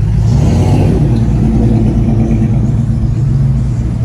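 An engine running with a steady low drone, swelling briefly in the first second before settling.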